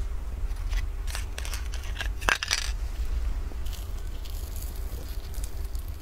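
Flaky puff-pastry crust and its foil cup crackling and crunching as the pastry is handled and pulled apart by hand, in a run of sharp crackles with the loudest about two seconds in and more crackling later, over a steady low hum.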